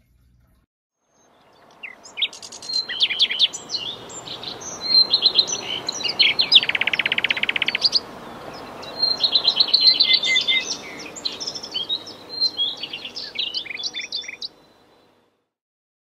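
A songbird singing a varied run of quick chirps and whistles, with a fast trill about midway and a short pause after it. The singing starts about a second and a half in and stops shortly before the end.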